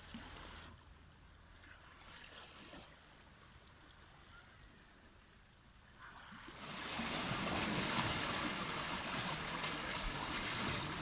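Faint at first, then about six seconds in small sea waves start washing and splashing over shoreline rocks and pebbles, loud and steady.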